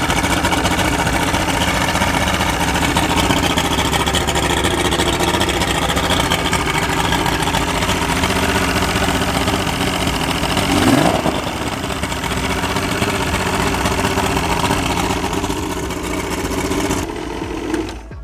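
Mercury two-stroke outboard running steadily at idle on freshly replaced reed valves, its former rough idle cured. About eleven seconds in it is briefly revved up and back down.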